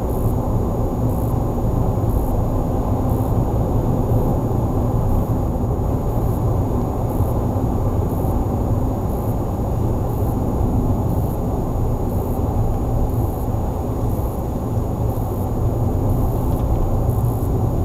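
A car driving along a paved road, heard from inside the cabin: a steady low rumble of engine and road noise.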